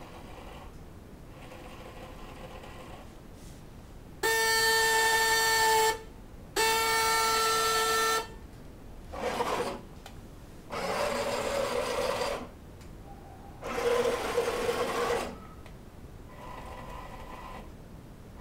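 Battery-operated 1970s Rico Pegaso toy truck: its horn sounds twice, steady buzzy blasts of about a second and a half each, then its small electric motor whirs in three short runs as the truck drives.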